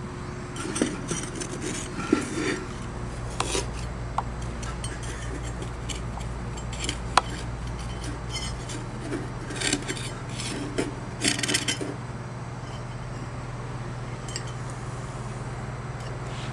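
Metal putty knife scraping glass drips off kiln firebrick in short, irregular strokes with small clicks. The strokes come in clusters near the start and again about ten seconds in, over a steady low hum.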